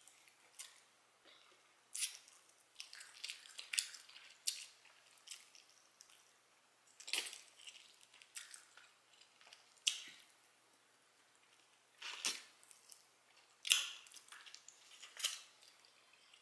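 Close-miked chewing and wet lip-smacking of someone eating barbecue ribs: irregular sharp smacks and mouth clicks, about a dozen of them, spaced unevenly with short gaps between.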